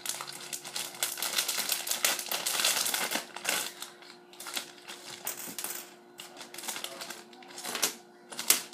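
Small Lego pieces clicking and rattling as they are shaken out of a plastic polybag onto a hard table. There is a dense run of clicks for the first few seconds, then sparser ones, with two louder knocks near the end.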